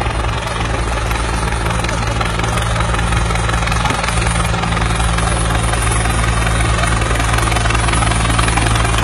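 Helicopter engine and rotor running with a steady low hum.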